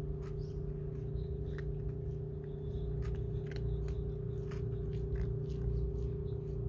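Cats eating, with scattered sharp crunching clicks over a steady hum.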